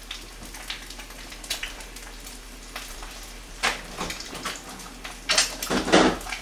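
Kimchi stew simmering in an earthenware pot (ttukbaegi), with a steady fine bubbling crackle. A few louder knocks and clatters of kitchenware come a little past halfway and again near the end.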